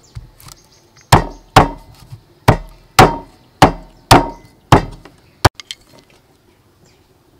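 Metal cleaver chopping on a thick round wooden chopping block: eight heavy chops about half a second apart, with one slightly longer gap after the second. A few light clicks follow.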